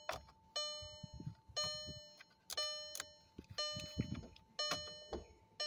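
Volkswagen Golf instrument cluster warning chime repeating about once a second, each a ringing multi-tone ding that fades before the next. It sounds while the cluster reports the immobilizer active.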